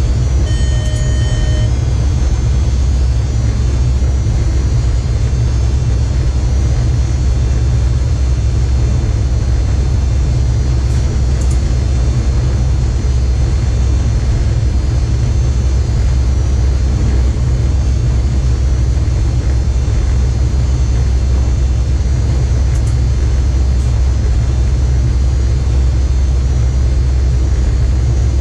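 Steady, loud low rumble inside an electric locomotive's cab running at speed on the main line. About half a second in, a short electronic beep of about a second sounds from the cab equipment.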